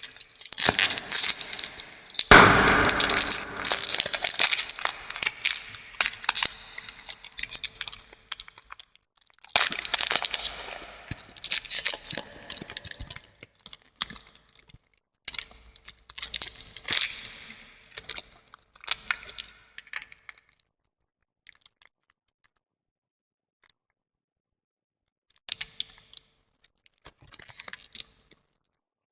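Lollipop ASMR sounds: dense crackling and crinkling of hard candy and its wrapper being handled, coming in spells of several seconds, with a quiet gap of a few seconds about two-thirds of the way through.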